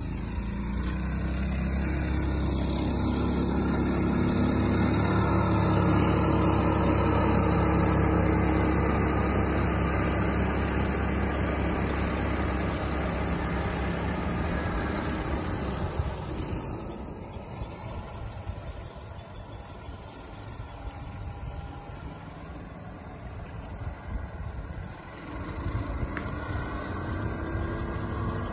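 Mud-Skipper SPORT surface-drive mud motor pushing a small boat at speed. The engine note swells to its loudest in the first half as the boat passes close, then fades about halfway through as it runs off across the water, and comes up slightly again near the end.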